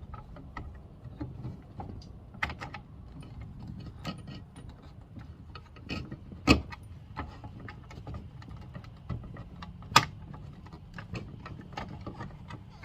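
Small clicks, taps and knocks of hand tools and hard plastic armrest parts being worked and handled, with sharper knocks about 2.5, 6.5 and 10 seconds in.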